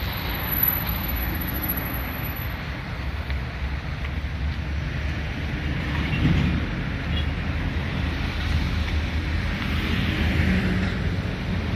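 Steady low outdoor rumble of vehicle and machinery engines, with wind noise on the microphone.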